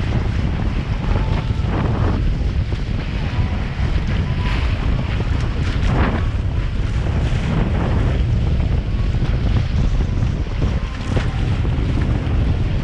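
Heavy wind noise on the microphone over water rushing along the hulls of a Hobie 18 catamaran under sail, with spray splashing several times.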